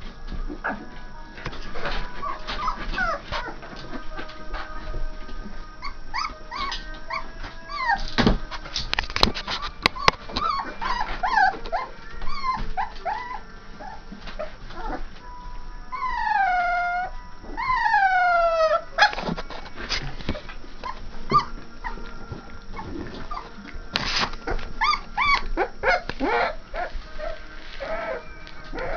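A litter of 3½-week-old Saint Bernard puppies whining and yelping in many short, high cries, with two longer falling howls about halfway through and a few sharp knocks.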